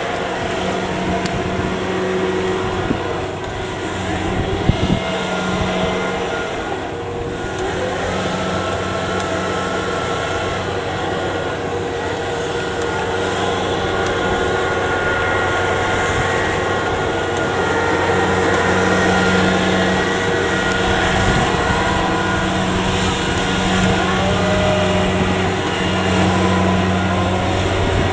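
Diesel engine of a Kubota rice combine harvester running steadily, a little louder in the second half.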